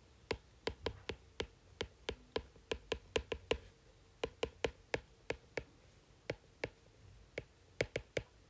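Stylus tip tapping and clicking on a tablet's glass screen during handwriting: an irregular run of short sharp taps, several a second.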